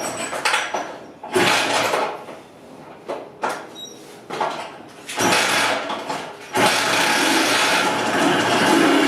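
1978 Suzuki TS125's two-stroke single-cylinder engine being started: it fires in four short bursts and dies back each time, then catches about two-thirds of the way in and keeps running steadily.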